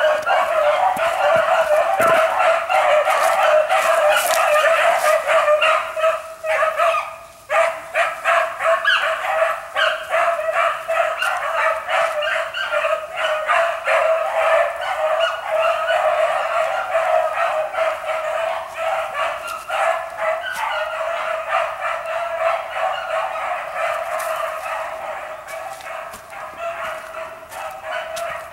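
A pack of rabbit hounds baying and yipping continuously on a rabbit's trail, several voices overlapping, the cry fading toward the end as the chase draws away.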